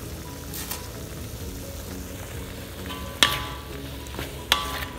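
Squid sizzling in soy sauce in a wok while a wooden spatula stirs it. Two sharp knocks of the spatula against the wok, a little over a second apart in the second half, each with a short ring.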